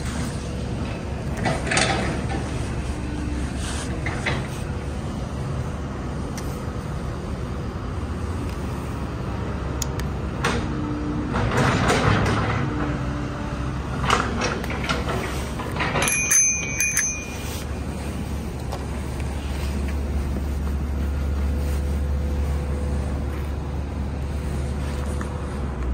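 An electric-assist bicycle being handled, with scattered clicks and knocks of its parts over a steady low rumble, and a short high electronic beep about sixteen seconds in.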